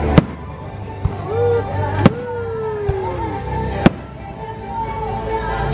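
Fireworks going off over a playing show soundtrack: a series of sharp bangs roughly a second apart, the loudest about two and four seconds in, with music playing throughout.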